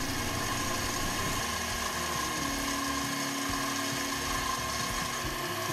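Small benchtop metal lathe running steadily while a tangential tool bit takes a turning cut on a steel shaft: a steady high motor whine, with a lower hum joining about halfway through.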